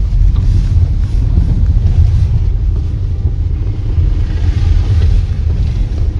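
Steady low rumble of a moving car's engine and tyres, heard from inside the cabin. The hiss swells briefly about four seconds in as an oncoming vehicle passes close.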